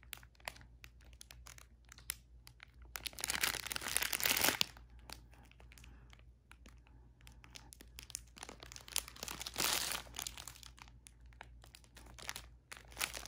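Clear plastic bag of diamond-painting drills crinkling and rustling as it is handled and turned, with many small clicks and two louder bursts of rustling, about three to four and a half seconds in and around ten seconds in.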